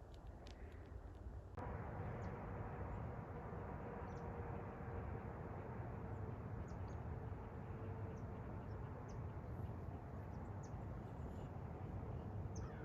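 Quiet outdoor background with faint, scattered bird chirps and a faint steady hum; the background hiss steps up abruptly about a second and a half in.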